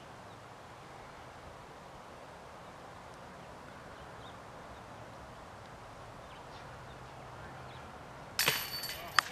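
Near the end, a disc golf disc strikes the metal basket: a sudden loud metallic clang and chain rattle that rings for about a second, then a single sharp click.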